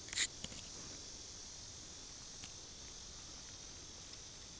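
A few short scrapes of fingers digging in loose soil near the start, with one more faint tick later, over a steady high-pitched drone of insects.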